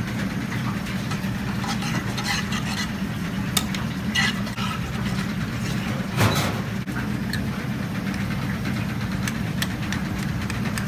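Steady low drone of commercial kitchen equipment, with clinks and scrapes of a metal spoon stirring sauce in an aluminium pan on a gas burner, and a louder clank about six seconds in.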